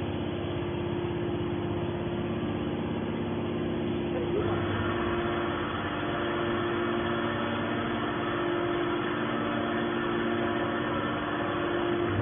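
Hydraulic scrap baler machinery running with a steady mechanical hum; about four and a half seconds in it gets brighter and a little louder.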